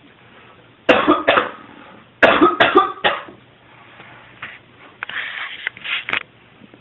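A person coughing close to the microphone in fits: two coughs about a second in, a run of four a second later, and a softer run near the end.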